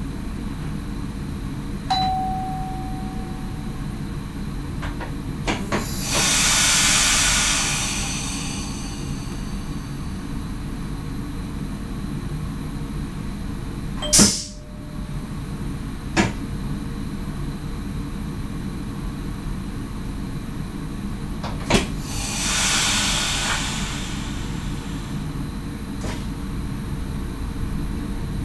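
Cab of an NS SGM Sprinter electric train: the cab equipment hums steadily, a short beep sounds about two seconds in, and sharp clicks come now and then, the loudest about halfway through. Two hisses of compressed air, each lasting about two seconds, come about six and twenty-two seconds in.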